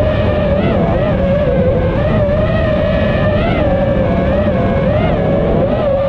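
Brushless motors and propellers of an iFlight Nazgul5 5-inch FPV quadcopter whining in flight, the pitch wavering up and down as the throttle changes, heard from the drone's onboard camera over a low rumble of wind on its microphone.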